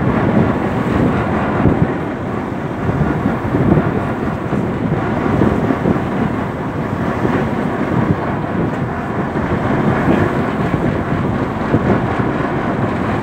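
Loud wind rush on the microphone aboard a moving boat over choppy sea, rising and falling a little, with the low rumble of the boat and water beneath it.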